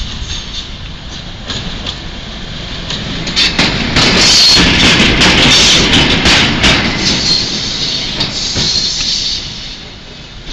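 ČD class 751 diesel locomotive 751 338-5 running light past at close range, its six-cylinder ČKD diesel engine running. It gets loudest as it draws level, about four to seven seconds in, with a run of sharp clicks from the wheels over the rail joints, then fades as it pulls away.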